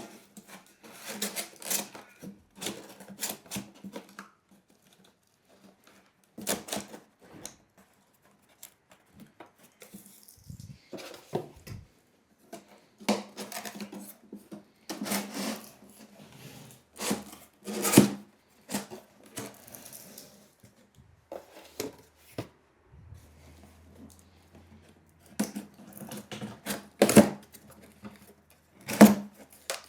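Corrugated cardboard shelf parts being handled and slotted together: irregular taps, knocks and scrapes of stiff cardboard, with the sharpest knocks about halfway through and near the end.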